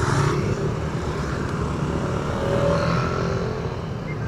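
Motorcycle engine running with road noise while riding in traffic, and another motorcycle passing close by at the start.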